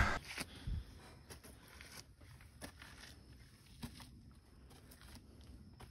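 Faint, irregular footsteps and scuffs of hikers climbing a steep clay trail, with a louder thump about half a second in.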